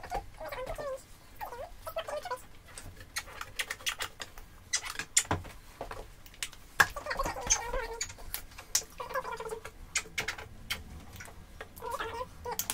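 Acrylic paint squirting from squeezed plastic tubes onto bubble wrap, with short squelching, squeaky splutters (a "squidge") among many clicks and taps of plastic tubes and caps on the table.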